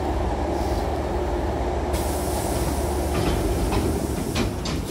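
Hankyu train's double sliding passenger doors closing at a station stop, over the steady low hum of the stopped train. A hiss starts about two seconds in, then the door panels slide shut with a few rattling clicks near the end.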